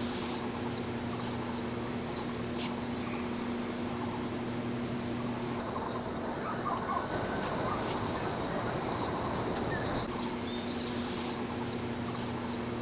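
Birds chirping over a steady background hiss, with a low hum that drops out for a few seconds in the middle.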